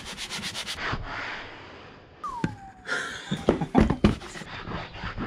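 A hand rubbing and patting across the Yamaha Kodiak ATV's plastic front body panel: a quick run of clicks, brushing, a short falling squeak a little over two seconds in, then more knocks and scrapes.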